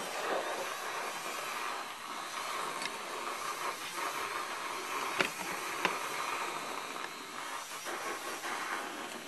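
Handheld battery milk frother whirring steadily as its whisk whips warm milk into foam in a mug, with two light clicks a little past the middle.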